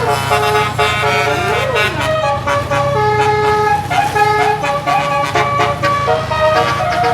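Bus telolet horn playing a multi-tone melody: a run of held horn notes that change pitch, with a quick falling-and-rising swoop about a second and a half in. A low steady rumble runs underneath.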